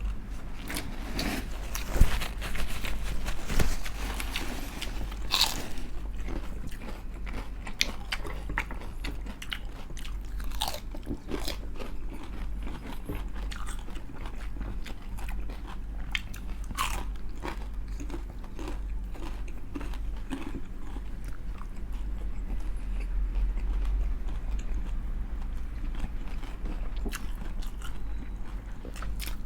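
Close-miked biting and chewing of crispy fried chicken skin: repeated sharp crunches at an uneven pace, the loudest about two seconds in, over a steady low hum.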